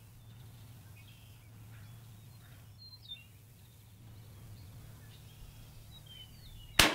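Faint bird chirps over a low steady hum, then near the end a single sharp, loud shot from a scoped Mosin-Nagant PEM sniper rifle (7.62×54R), echoing across the range.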